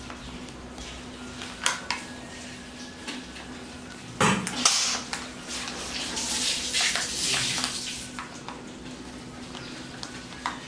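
Hard plastic clicking and clacking as a Kinder Joy toy capsule is handled and pried at by small fingers, with one louder knock about four seconds in and a stretch of rustling a couple of seconds later.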